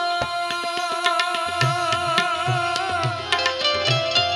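Instrumental interlude of a Gujarati bhajan: harmonium and benjo carry the melody over a steady beat of tabla and clinking manjira hand cymbals. The melody moves to a new phrase about three seconds in.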